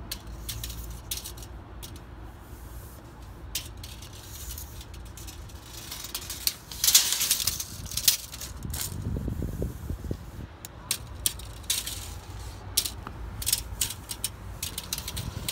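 Steel tape measure being pushed up a wall, its blade clicking and rattling in irregular ticks, with a louder rush of noise about seven seconds in.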